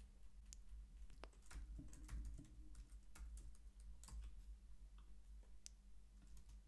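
Faint typing on a computer keyboard: scattered, irregular keystrokes as a terminal command is typed.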